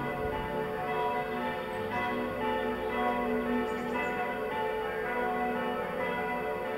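Several church bells swinging and ringing together in a full peal, their strokes overlapping so the tones ring on continuously with no break.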